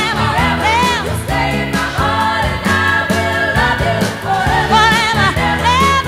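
Background song: a singer's voice with vibrato over accompaniment with a steady beat.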